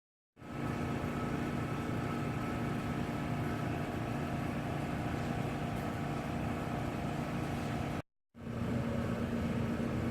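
Steady machine hum with a few faint steady tones, broken by a short dropout about eight seconds in.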